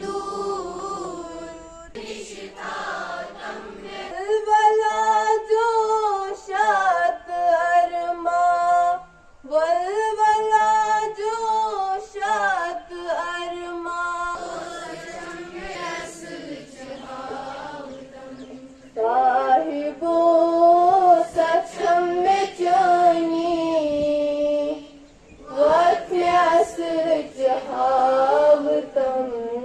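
A girl singing a slow song over a loudspeaker, with long held notes that waver in pitch and short pauses between lines.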